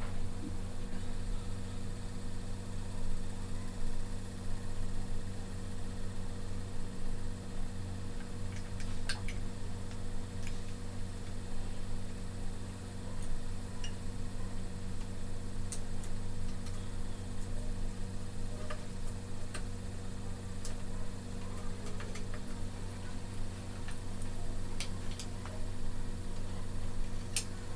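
Steady low hum throughout, with a few faint, scattered clicks of a screwdriver and small metal parts being worked on an air rifle's receiver tube.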